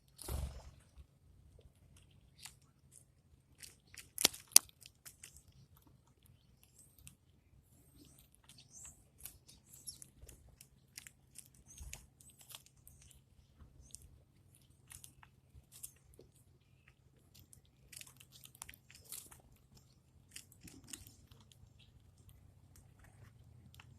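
A bird pecking and crunching food, a scatter of small sharp clicks and crunches with one louder knock about four and a half seconds in.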